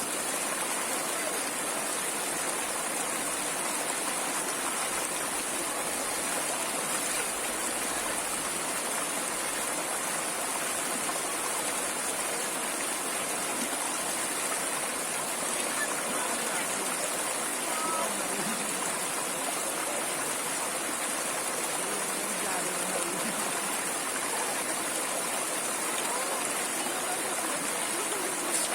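A stream flowing steadily, with a continuous rushing and burbling of water.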